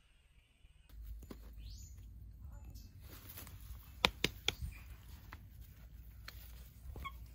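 A small monkey clambering on a woven bamboo fence: sharp clicks and knocks of bamboo slats, the three loudest close together about four seconds in. Under them is a low rumble, and there are a few short high squeaks.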